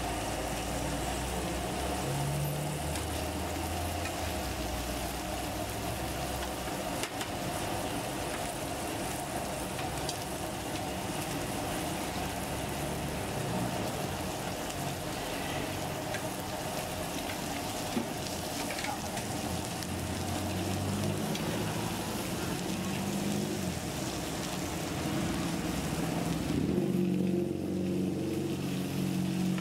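Meat steaks sizzling steadily on a hot flat steel griddle, with a low engine hum from passing traffic underneath.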